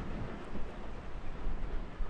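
Low rumble of a passing train dying away, with wind buffeting the microphone.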